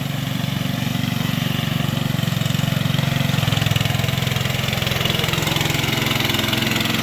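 Honda GX160 single-cylinder engine of an H-Max compact loader running steadily in first gear under load, its pitch dipping slightly about halfway through and picking up again near the end.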